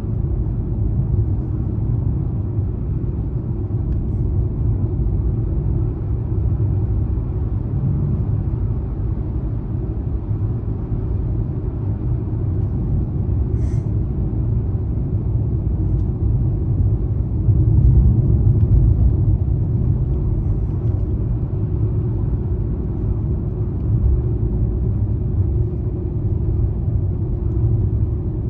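Car driving: a steady low rumble of engine and road noise, swelling a little about two-thirds of the way through.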